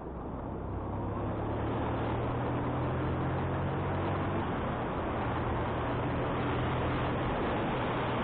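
Motorcycle engine running steadily under wind rushing over the microphone; the wind noise swells over the first couple of seconds, then holds.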